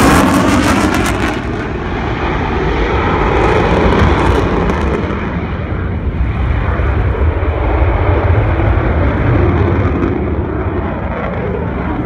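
F-16 fighter jet's engine, loud, as the jet passes and moves away. A hissing roar with a sweeping, phasing quality fades within the first couple of seconds, leaving a deep rumble that carries on.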